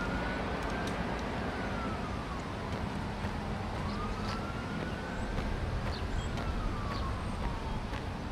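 Emergency-vehicle siren wailing, its pitch rising and falling slowly about once every four seconds, over a low steady city rumble.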